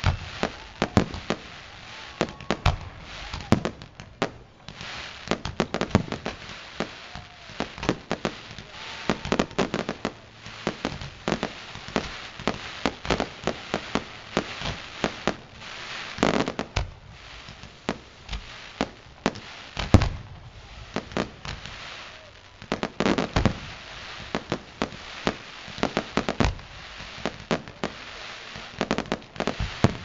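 Fireworks display: aerial shells bursting in a rapid, irregular string of bangs and pops, with a few louder booms in the second half.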